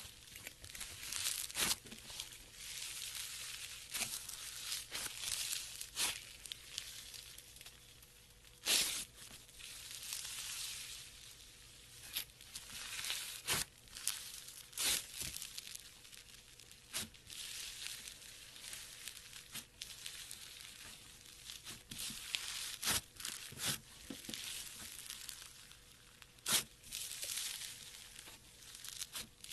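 Slime being squished and stretched by hand: irregular sticky crackling with frequent sharp pops.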